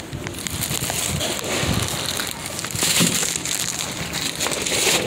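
Plastic poly-mailer packages crinkling and rustling as they are handled and moved, a dense crackle with many small clicks.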